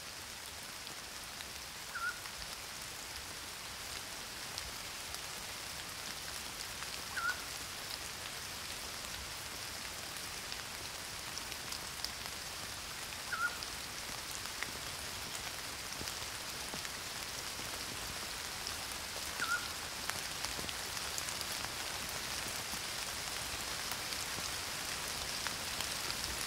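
Steady heavy rain hiss. A short high chirp cuts through it about every six seconds, four times in all.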